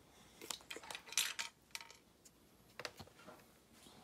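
Light clicks and clinks of small hard objects being handled, in a scattered series of short bursts with some crackly rustling, the loudest about a second in.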